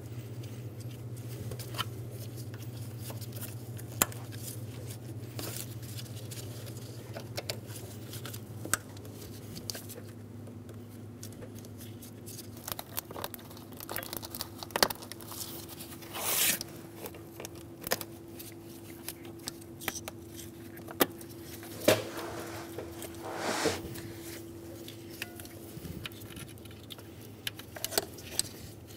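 Scattered small clicks, scrapes and rustles of hands pushing plastic wiring-harness clips and electrical connectors back into place on an engine, over a faint steady hum.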